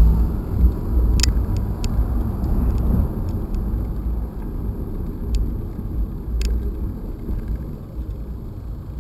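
Bicycle rolling along a concrete sidewalk, heard from the bike: a steady low rumble of wind and rolling noise with a few sharp clicks and rattles, the loudest about a second in and again at about six and a half seconds. The rumble eases slowly toward the end.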